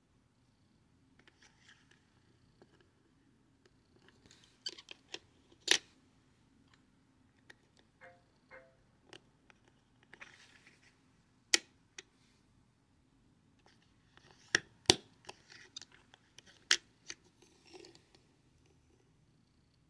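Plastic Lego bricks being handled and snapped together: a string of sharp plastic clicks, the loudest about 6, 12, 15 and 17 seconds in, between softer rustling and scraping of the pieces.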